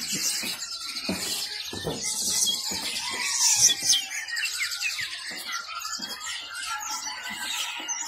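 Many caged songbirds chirping and trilling at once, a dense chorus of overlapping high calls.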